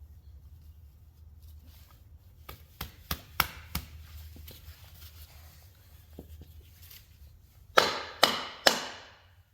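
Pilot bearing being pounded into an LS V8's crankshaft through a block of wood. There are a few light knocks and clicks as it is set in place, then three hard knocks in quick succession near the end, each trailing off briefly.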